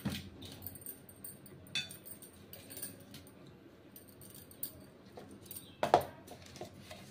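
Light clinks and knocks of a stainless steel bowl and plate being handled during food prep, over faint rustling, with one sharper clank about six seconds in.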